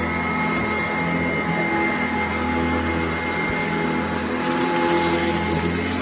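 Sanitaire Heavy Duty commercial upright vacuum running steadily on carpet, its motor hum carrying a steady whine. A spell of crackling about four and a half seconds in, as grit is sucked up.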